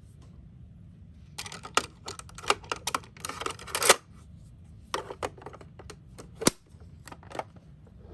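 Small toy cars clicking and clattering as they are handled: a busy run of rattling clicks lasting a couple of seconds, then a few separate clicks, one of them sharp.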